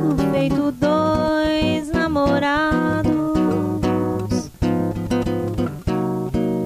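A woman singing held, wavering phrases over strummed and plucked acoustic guitar, with short breaks between phrases.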